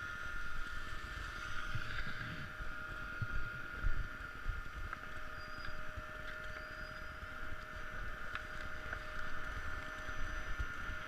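Wind buffeting a small camera's microphone, an uneven low rumble with a faint steady whine under it.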